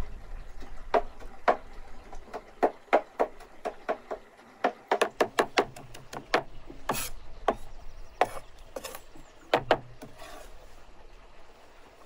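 A large cleaver-style knife chopping fresh green herbs on a wooden cutting board: a run of sharp, irregular knocks of the blade on the wood. The knocks come quickest about five to six seconds in, and a few short scrapes follow.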